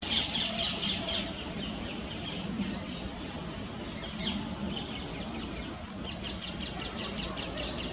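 Great tit fledglings giving begging calls: rapid runs of short, high, repeated notes, loudest in the first second and fainter in later runs. A steady low hum lies underneath.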